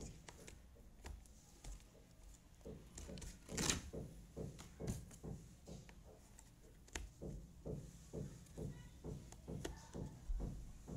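Jigsaw puzzle pieces being picked up, tapped and pressed into place on a table: irregular soft clicks and taps, with a brief louder rustling scrape a little under four seconds in.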